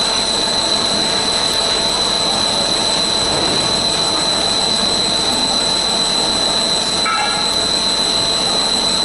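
Core drill on a CNC drilling machine cutting through metal plate under coolant spray: a loud, steady high-pitched whine over constant noise from the cut.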